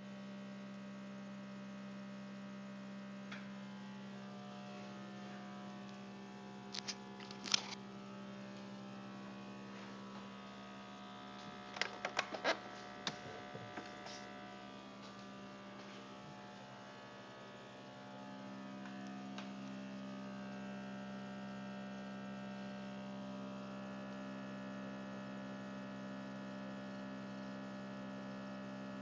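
Refrigerator humming steadily with a strong low tone, which the owner calls broken. A few sharp clicks come about 7 seconds in and again about 12 seconds in, and from about 18 seconds the hum grows a little louder and takes on an extra tone.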